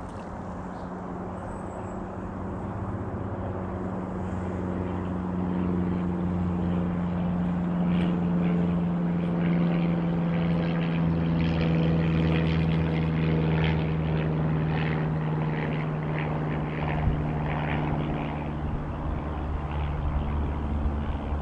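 A steady engine drone passes by, growing louder over the first dozen seconds and then fading, its pitch sinking slightly as it goes.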